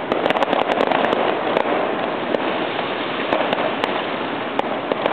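Fireworks crackling densely, with many sharp little pops and cracks in quick succession.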